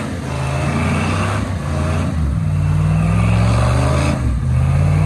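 Rock buggy's engine revving hard under load as it climbs a rock ledge. The revs surge, drop back and surge again, about three pushes in all.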